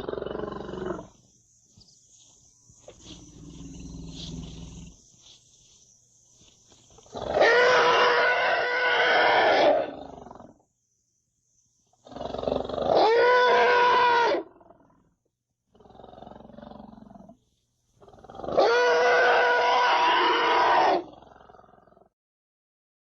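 Diplodocus dinosaur sound effect: three loud drawn-out calls, each about two to three seconds long with a steady pitched tone, between quieter low calls.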